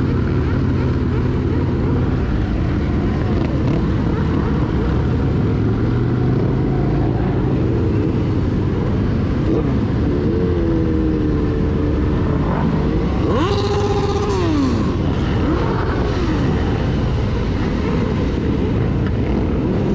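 Group of motorcycles riding together: a steady engine rumble and rush of riding noise from the bike carrying the microphone, with nearby motorcycles revving up and down, most clearly about two-thirds of the way through.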